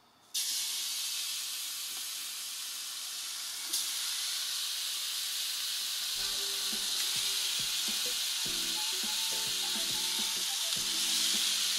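Bacon rashers sizzling on a hot griddle plate, the sizzle starting suddenly about half a second in and getting louder as another rasher goes down a few seconds later. From about six seconds in there are light knocks from handling at the cooker.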